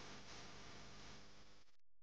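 Near silence: a faint steady hiss that cuts out near the end.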